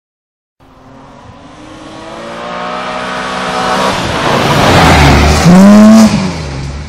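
A rally car at speed on a gravel stage, its engine growing louder as it approaches and revving hard as it comes close, loudest about five seconds in.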